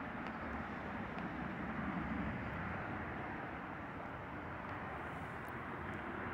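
Distant jet aircraft passing overhead: a steady noise that swells slightly about two seconds in.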